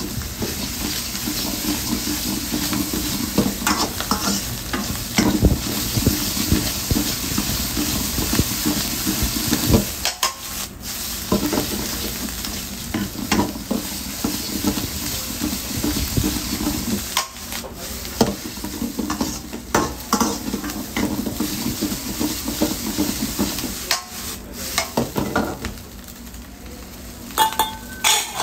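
Noodles sizzling in a hot black steel wok while a metal wok ladle stirs and tosses them, scraping and clinking against the pan again and again. A quick run of louder clinks comes near the end.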